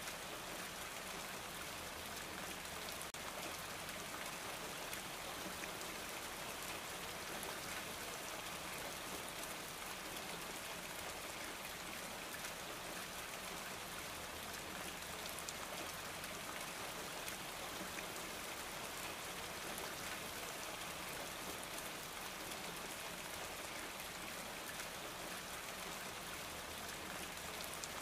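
Steady rain-like noise: an even hiss with fine pattering that does not change.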